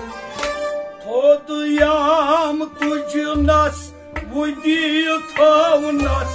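Kashmiri Sufi music: a melodic line with wide, wavering ornaments over a steady held drone, with deep drum strokes recurring about every one and a half seconds.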